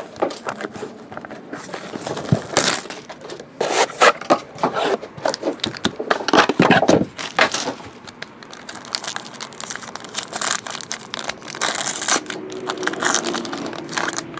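A trading-card box being opened and the foil wrapper of the pack inside crinkled and torn open by hand: irregular crackling and ripping of foil and packaging, coming and going in clusters.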